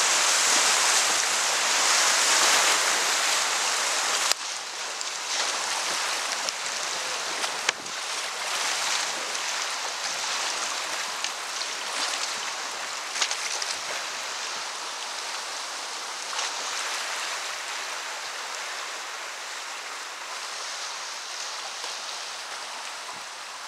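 White-water rapids rushing loudly around a kayak. The sound drops suddenly about four seconds in to a softer, steady rush of fast river water. A few short splashes from paddle strokes come through it.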